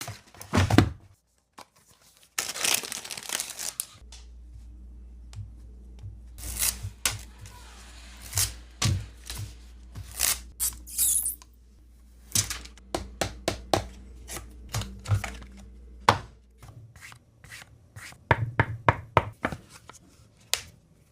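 Unboxing handling of a phone box: paper tearing about two seconds in, like the box's tear-off wrapper strip being pulled, then many light clicks and taps of cardboard and the phone being handled. A low steady hum runs underneath through most of the middle.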